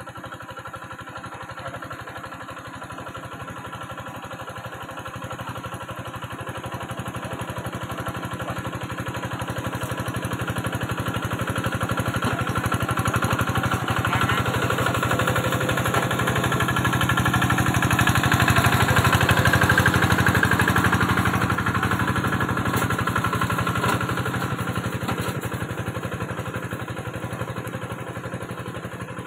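Small engine of a rice-paddy mud vehicle running steadily under load, growing louder to a peak about two-thirds of the way through and then fading.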